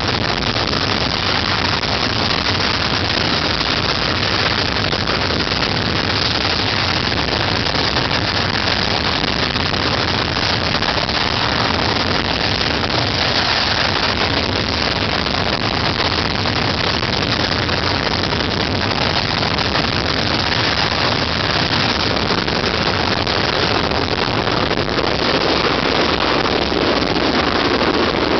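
Handley Page Victor's four Rolls-Royce Conway turbofan engines running as the bomber taxis along the runway: a steady jet noise that grows a little stronger near the end.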